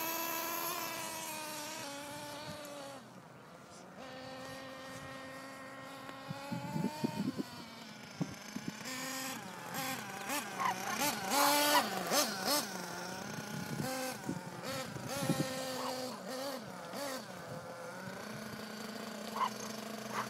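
Small two-stroke engine of a gas-powered RC car running, its high-pitched buzz rising and falling as the car speeds up and slows. The engine is louder and more ragged in the middle stretch, with sharp bursts of revving.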